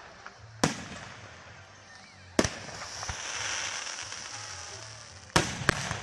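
Fireworks going off: a sharp bang about half a second in, another about two and a half seconds in followed by a high hiss lasting a couple of seconds, then two bangs in quick succession near the end.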